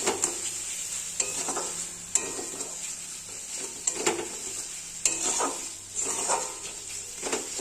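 Spice paste of onion, garlic and ginger with ground spices sizzling in hot oil in a pan. It is being stirred, with a scrape or knock against the pan about once a second.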